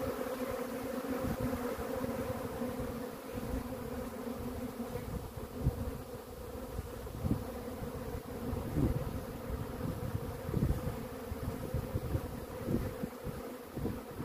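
Honeybee swarm buzzing, many bees flying over their cluster in the grass: a steady, even hum throughout, with irregular low rumbles underneath.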